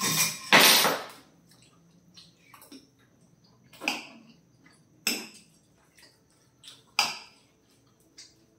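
Eating with metal spoons from plates of gravy-soaked parotta: a loud wet noisy stretch in the first second, then quiet broken by a few sharp clinks or slurps, about one every second or two.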